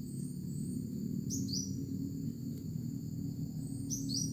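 A bird chirping, a quick pair of high calls about a second in and again near the end, over a steady low hum.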